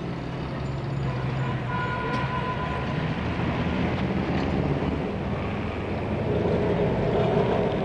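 Single-deck electric tram, a former New York Third Avenue car, running along street track with a steady rumble. A higher whine comes in about six seconds in.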